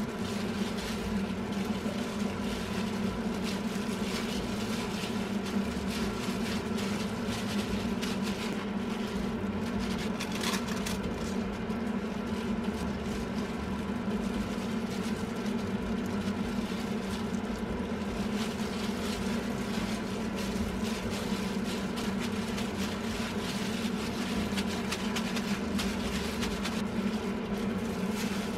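A steady machine hum runs unchanged throughout, with the light crinkling of thin plastic food-prep gloves as the hands knead and shape raw minced-meat patties.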